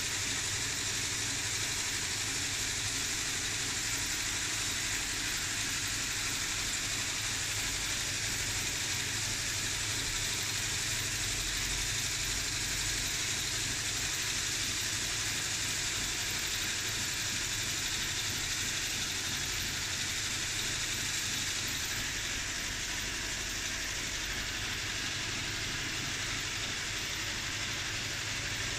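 Steady background noise: an even hiss with a low hum beneath, unchanging throughout.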